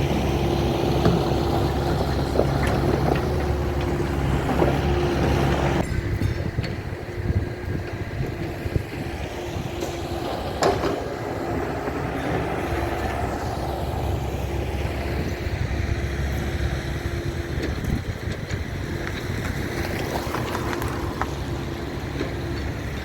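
A motor vehicle's engine running, a low rumble with a steady hum. The rumble drops away about six seconds in and builds again later.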